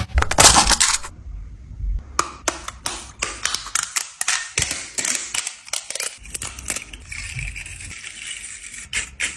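A brief loud rattle, then irregular sharp clicks and taps, a few a second, from hard objects being handled.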